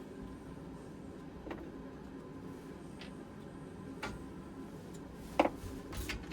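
A few sparse, light clicks and knocks, the loudest about five seconds in, over a low steady hum.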